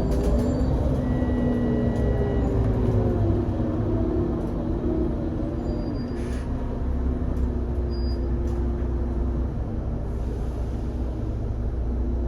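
Onboard sound of an Irisbus Citelis 18 GNC articulated bus running on its IVECO Cursor 8 six-cylinder twin-turbo CNG engine: a steady drone over a low rumble, its pitch wavering over the first few seconds and then holding steady.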